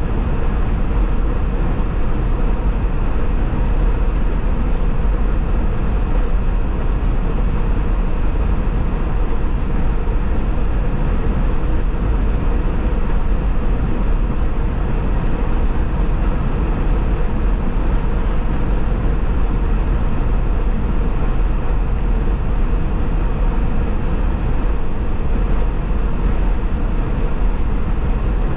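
A car travelling at freeway speed: a steady rumble of tyre, road and wind noise, heaviest in the low end, with a faint constant hum on top and no change in pace.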